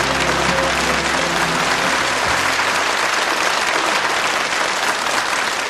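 Audience applauding steadily, with low sustained notes of instrumental music underneath that stop about two seconds in.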